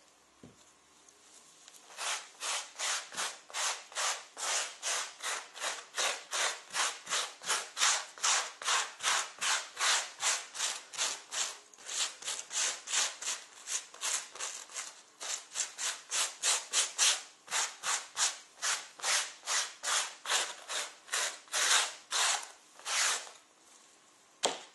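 Soft brush scrubbing gel cleaner into a leather jacket sleeve to lift the dirt, in quick even back-and-forth strokes about two to three a second. The strokes start about two seconds in and stop shortly before the end.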